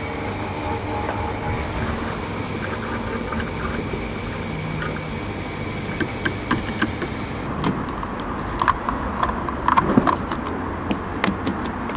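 A car running along the road, heard as a steady low rumble, with scattered clicks and knocks from about halfway through.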